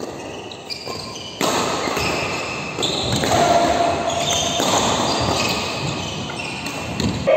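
Badminton rally sounds in a large echoing sports hall: rackets hitting the shuttlecock and shoes squeaking on the court floor.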